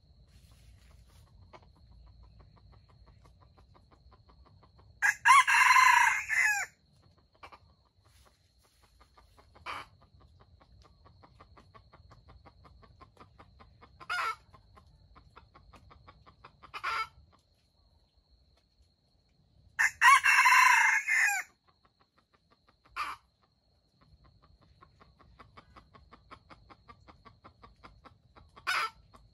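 Red junglefowl rooster crowing twice, each crow lasting about a second and a half, with a few short single calls in between.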